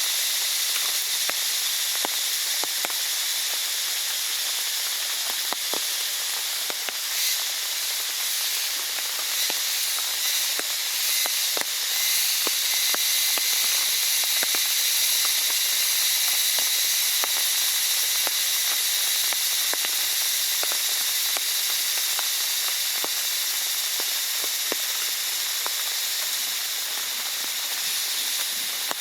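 Steady rain falling: a continuous even hiss with many scattered ticks of individual drops.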